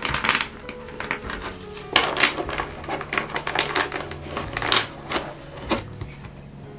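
A deck of tarot cards being shuffled by hand, the cards slapping and sliding against each other in quick runs of clicks. A brief burst comes at the start, and the busiest stretch runs from about two seconds in to nearly six seconds.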